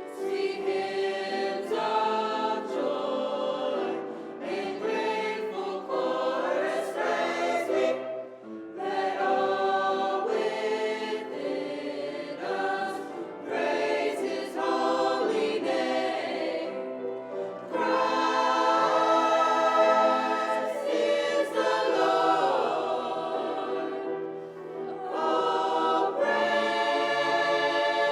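A school choir singing in harmony, with long held chords and short breaks between phrases.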